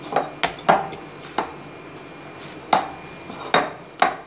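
Risen naan dough being kneaded and pressed by hand in a glass bowl, the bowl giving irregular sharp knocks and clinks, about seven in four seconds.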